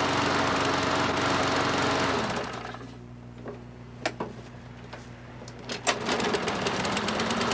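Troy-Bilt lawn mower engine running at speed, then dropping in pitch and loudness to a low idle about two seconds in. A few sharp clicks sound during the idle, and about six seconds in the engine picks back up to full speed, its pitch climbing again.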